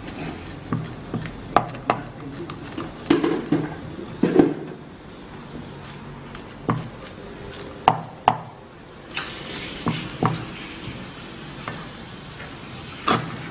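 Cleaver chopping small whole fish on a thick round wooden chopping block: irregular sharp knocks, one to a few a second, with a pause about five seconds in and the loudest knock near the end.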